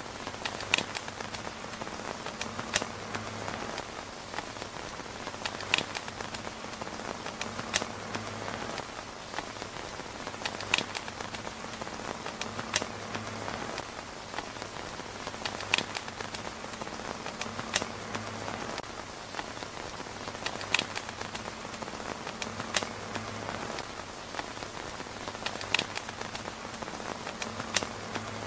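Steady rain on a tent's fabric roof, with sharp clicks standing out every two to three seconds. The whole pattern repeats about every five seconds, as a loop does.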